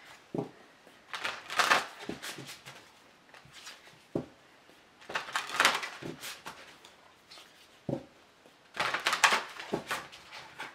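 A deck of oracle cards shuffled by hand: three bursts of papery rustling and flicking, with a few sharp taps in between.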